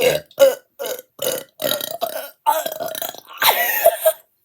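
A person belching nine times in quick succession on purpose, short burps about half a second apart, the last two longer and the final one the loudest.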